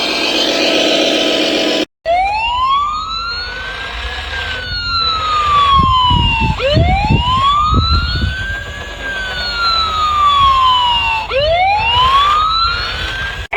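A toy emergency vehicle's electronic siren sound effect, wailing with a quick rise and a slow fall, three times over. Before it, about two seconds of steady motor noise, which cuts off suddenly.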